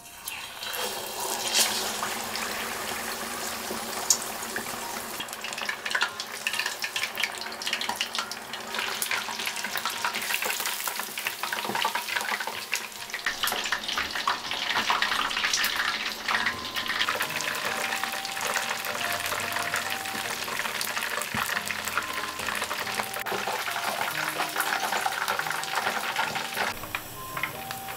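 Batter-coated chicken pieces deep-frying in hot oil: a dense, steady crackle and sizzle that starts as the pieces go in and stops about a second before the end.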